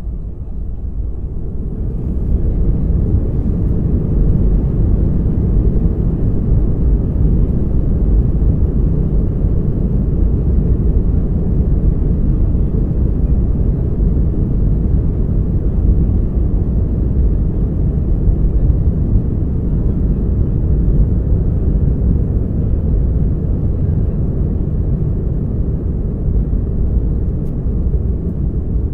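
Aircraft taking off: a steady deep engine rumble that swells over the first couple of seconds, then holds.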